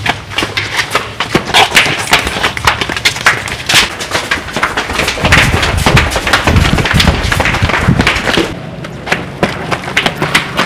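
A dense, irregular clatter of knocks, taps and thumps, with a low rumble under it from about five to eight seconds in.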